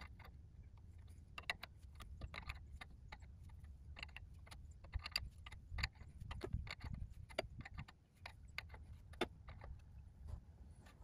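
Irregular metallic clicks and clinks of an open-end wrench being worked on a fastener in a truck's engine bay, a few light clicks a second, over a low steady background rumble.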